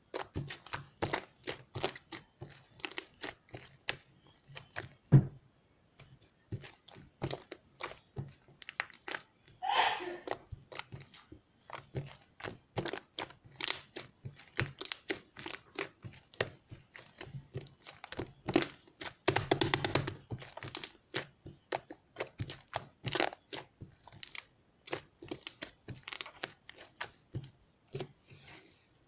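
Rapid, irregular crinkling and crackling with scattered clicks and knocks, the sound of something like plastic or paper being handled, with a longer, denser stretch of crackling about two-thirds of the way through.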